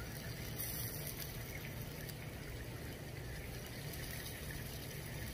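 Steady low background hum and hiss with no distinct events.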